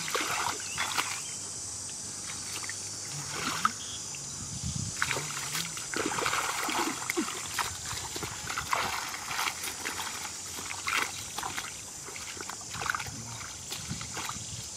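Hands splashing and sloshing in shallow muddy water, groping through mud and weeds, with irregular small splashes and squelches. A steady high buzz runs underneath.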